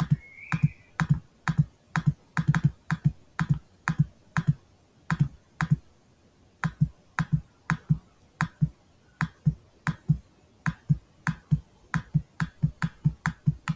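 A computer mouse button clicked over and over, about two sharp clicks a second, with a short pause about six seconds in.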